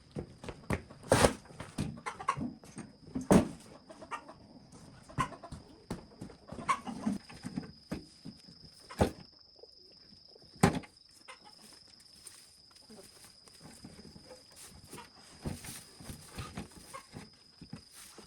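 Irregular knocks and clicks, with a few loud sharp impacts about a second in, around three seconds in, and near nine and eleven seconds in. A faint steady high tone runs underneath.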